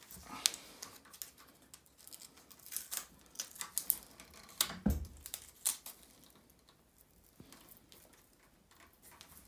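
Velcro hook-and-loop straps of a Mudhugger EVO mudguard being pulled tight and pressed down: scattered crackles, rustles and clicks, with a louder knock about five seconds in.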